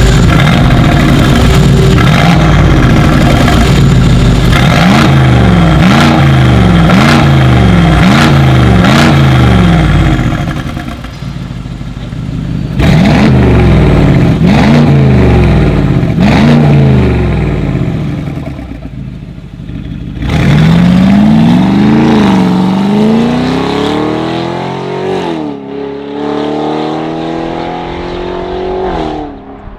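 Mercedes G500's twin-turbo V8 through an open-valved Fi valvetronic exhaust with catless downpipes, blipped in a run of quick revs about one a second. It then pulls away hard, pitch rising through the gears with two shifts before climbing again near the end.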